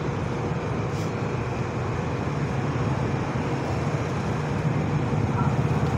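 Steady street traffic noise: a continuous low rumble of vehicle engines, growing a little louder near the end.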